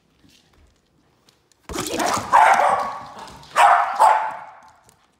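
A Jack Russell terrier barking loudly, with two main barks about a second and a half apart in the second half.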